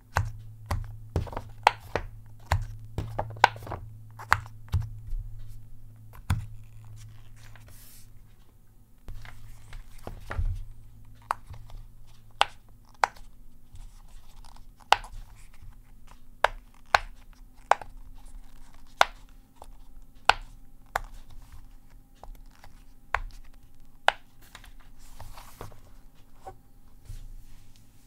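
Silicone bubbles of a rainbow Pop It keyboard-shaped fidget toy being pressed one at a time by fingers, each giving a short, sharp pop. The pops come irregularly, one or two a second, and thin out in the second half.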